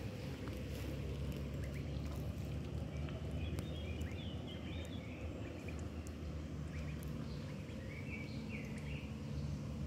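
Outdoor woodland ambience: a steady low rumble with short bird chirps a few times, around the middle and near the end.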